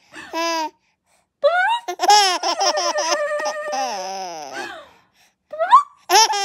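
Baby laughing: a short burst, then a long run of pulsing belly laughs lasting about three seconds, a rising squeal, and another bout of laughter at the end.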